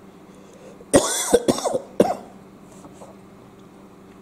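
A man coughing: several coughs in quick succession, starting about a second in and lasting about a second.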